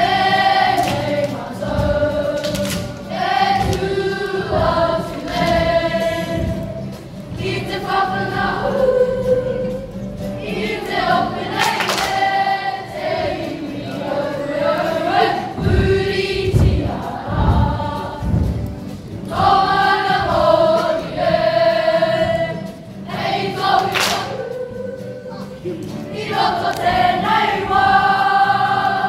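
A kapa haka group of boys singing a Māori song together in unison, in sustained phrases with short breaks between them.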